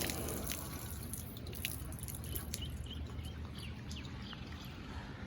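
Water dripping, with scattered short, high chirps of small birds over a steady background hiss.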